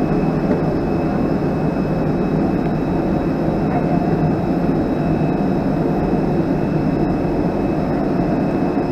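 Steady drone of a parked airliner's machinery heard at its boarding door: a continuous noisy hum with a faint thin whine above it.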